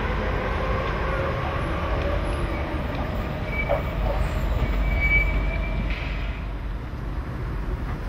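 Hamburg Hochbahn DT 2 U-Bahn train pulling in and braking at the platform: rolling noise with a falling motor whine, and short high brake squeals about three and a half and five seconds in. The noise dies down as the train comes to a stop.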